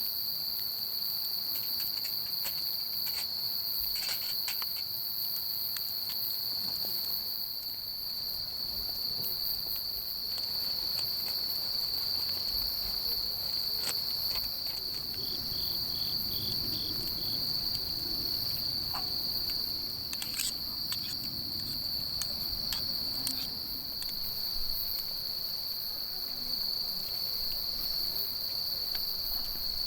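Insects chirring in one steady, unbroken high note throughout, with faint scattered clicks and ticks over it.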